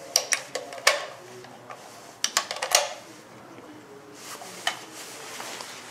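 Brass 7.62×51 mm (.308 Winchester) rifle cartridges clinking and clicking as they are handled and pressed into a rifle magazine. There are several sharp metallic clicks at irregular intervals, with a softer stretch in the middle.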